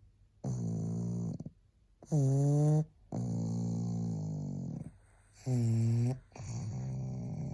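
A sleeping pug snoring: five separate snores with short quiet gaps between them, each a rasping, pitched sound lasting about half a second to nearly two seconds. The second and fourth snores are the loudest.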